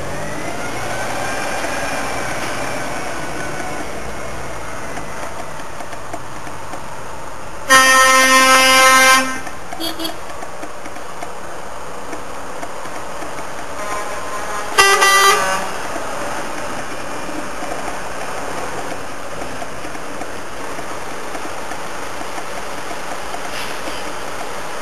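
Truck horns sounding over the steady engine noise of passing trucks: one long horn blast about eight seconds in, then a shorter, higher-pitched blast about seven seconds later.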